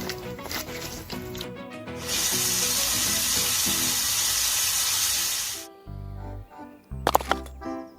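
Background music. From about two seconds in until near six seconds, a loud, steady hiss covers it, then cuts off and the music comes back with a heavier bass line.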